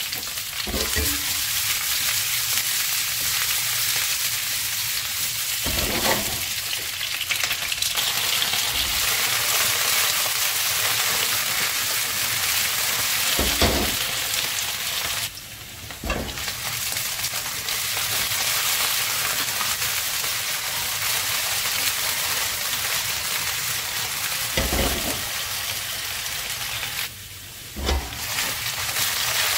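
Potato wedges sizzling steadily in hot oil in a nonstick frying pan. A few short low knocks come from the pan being moved and tossed on the burner, and the sizzle drops briefly twice as the pan is lifted.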